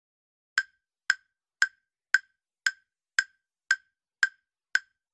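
Quiz countdown timer sound effect ticking: short, sharp, woodblock-like clicks, evenly spaced about twice a second, nine in a row.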